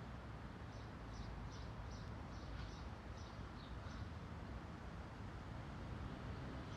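Distant city traffic as a low steady rumble, with wind in tree leaves. A small bird gives a quick series of short high chirps, about three a second, through the first half.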